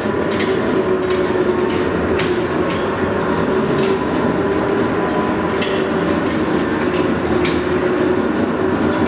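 Servo-driven plastic pipe coiler running, its reel spinning empty: a steady mechanical hum with irregular metallic clicks and clinks.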